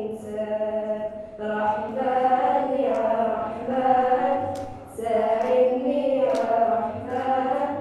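Young voices singing a slow melody, amplified through microphones, in long held phrases with short breaks between them.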